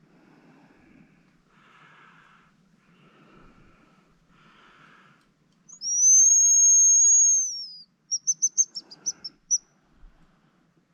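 Hazel grouse decoy whistle blown close by: one long thin high whistle of about two seconds that drops away at its end, followed by a quick run of about eight short high notes in imitation of the grouse's song.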